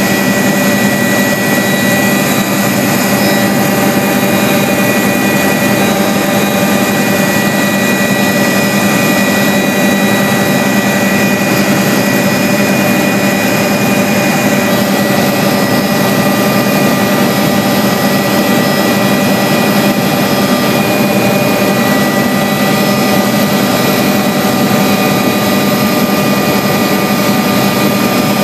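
Helicopter engine and rotor noise heard from inside the cabin in steady flight: a loud, even drone with a steady high whine over it.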